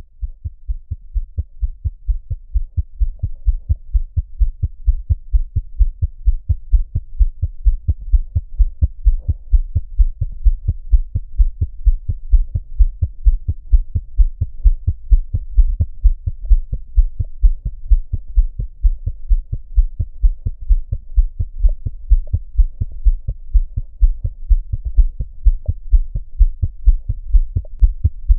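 Fetal heartbeat from a Doppler monitor, played back through a speaker: fast, even, low whooshing pulses, about two to three a second, growing louder over the first few seconds.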